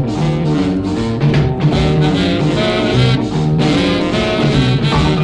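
Early-1950s rhythm-and-blues record playing an instrumental stretch between sung verses: saxophones riffing over a steady boogie beat, with no vocal.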